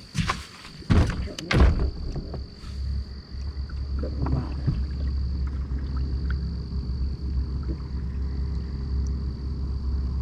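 Several loud thumps in the first two seconds, then a steady low rumble with a thin, high, steady whine over it.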